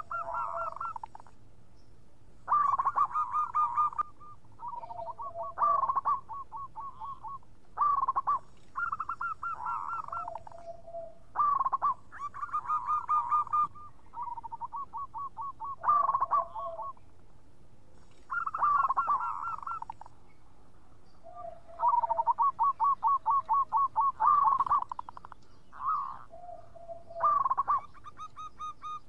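Zebra dove (perkutut) singing: repeated phrases of quick stuttering coos every few seconds, several of them dropping to a lower note at the end.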